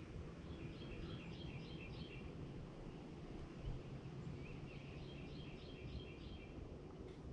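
A songbird sings two phrases of quick, repeated high notes, each about a second and a half long, with a pause of a couple of seconds between them, faint over a steady low outdoor rumble.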